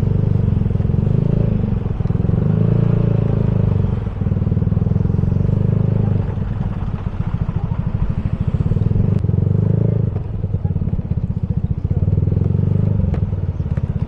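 Motorcycle ride: wind buffets the microphone in a heavy, fluttering rumble over the motorcycle's running engine, with the rumble easing briefly a couple of times and swelling again.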